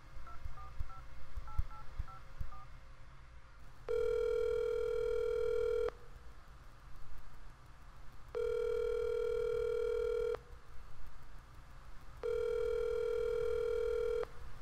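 A phone number being dialled, a quick run of short keypad tones, then the ringback tone of an outgoing call ringing three times, each ring about two seconds long with short pauses between.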